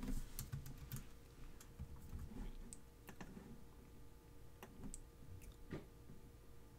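Irregular clicking of a computer mouse and keyboard, about a dozen sharp clicks spread unevenly, with a dull knock at the very start.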